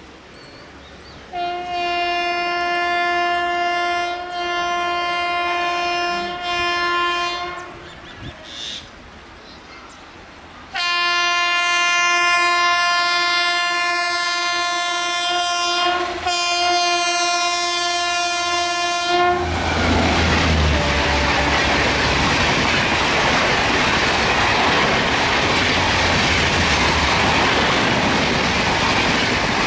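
A WAP-7 electric locomotive's horn sounds two long blasts on one steady note. The first lasts about six seconds with two brief dips, and after a pause of about three seconds the second lasts about eight seconds. The Rajdhani Express then passes at speed, a loud steady rush and rumble with wheels clattering over the rail joints.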